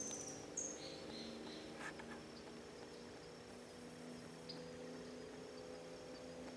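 Faint steady high insect trill, typical of a cricket, with a few short high chirps in the first two seconds and a low steady hum underneath.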